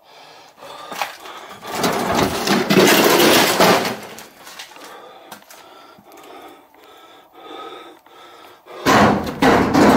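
Wooden planks of a board wall scraping and banging as something tears at them, loudest for about two seconds in the first half. Another loud burst near the end.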